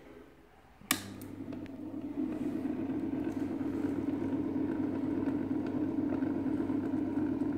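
HMV Fiesta portable record player switched on with a sharp click about a second in, then a steady low hum and rumble from its motor and amplifier as the turntable spins, building slightly over the next second before holding steady.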